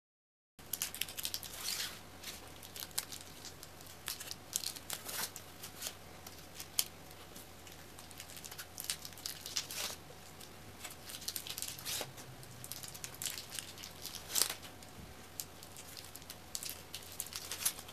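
Close handling noise of a teal fabric strip being wrapped around a plastic-bottle bangle: rustling and crinkling with many small clicks and crackles, starting about half a second in.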